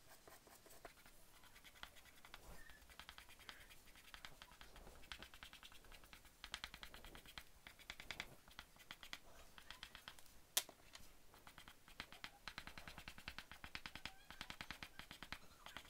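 Faint, quick scratching of a soft chalk pastel stick dragged in short strokes across paper, laying in grass, with one sharp click about ten and a half seconds in.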